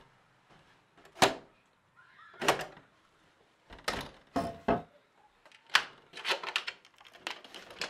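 Knocks on a wooden door, a few separate raps spread over several seconds, then a sharp clack and a quick run of small metallic clicks and rattles as the door's lock and security chain are worked from inside.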